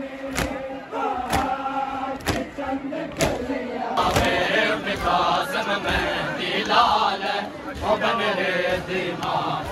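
A large crowd of male Shia mourners chanting in unison, with sharp rhythmic strikes about once a second, typical of matam chest-beating. The chanting grows louder about four seconds in.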